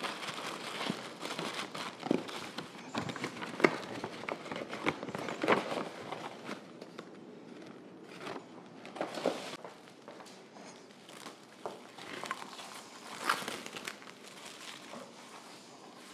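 Tissue paper rustling and crinkling while paperboard cookie boxes are handled and scones and cookies are packed into them, with scattered light taps and clicks.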